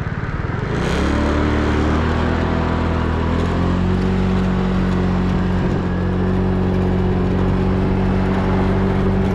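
Loud, steady mechanical hum made of several low steady tones, swelling about a second in and then holding. It is the droning noise the man went looking for, which he guesses is a ventilation system for keeping grain dry.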